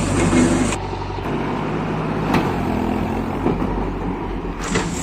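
Diesel engine of a JCB 3DX backhoe loader running steadily, with a few sharp knocks over it.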